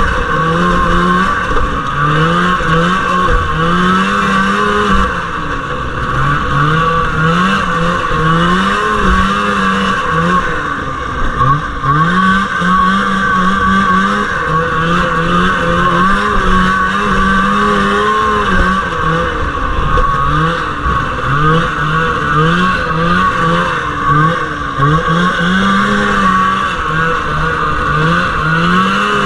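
1979 Arctic Cat Jag 3000 snowmobile's two-stroke engine racing, its pitch rising and falling every second or two as the throttle is worked on and off.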